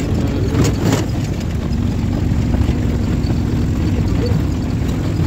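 A vehicle's engine and road noise heard from inside the cabin while driving: a steady low rumble, with a couple of short knocks just under a second in.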